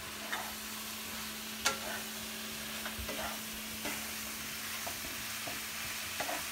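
Squid and cabbage sizzling in a frying pan while a wooden spatula stirs them, knocking and scraping against the pan, with a sharp clack about one and a half seconds in.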